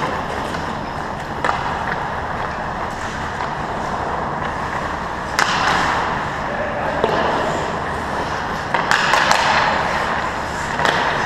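Ice hockey skates scraping and gliding on the ice, with sharp clacks of sticks and puck, in an echoing indoor rink. The strongest clack comes about halfway through, and a cluster of clacks comes near the end.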